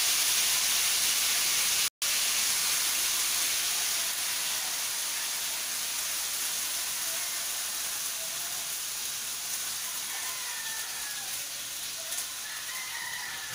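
Pork frying in hot oil in a wok, a steady sizzle and spatter that slowly dies down as the meat settles in the pan. The sound cuts out for an instant about two seconds in.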